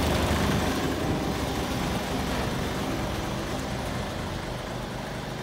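Isuzu Giga heavy truck's diesel engine idling steadily, growing gradually fainter.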